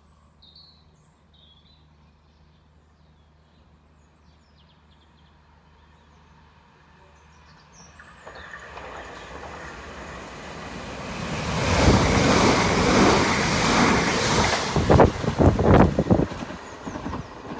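Southern Class 377 Electrostar electric multiple unit approaching along the line, its wheel and rail noise building over several seconds to a loud rush as it runs along the platform, with a quick series of wheel knocks over rail joints near the end.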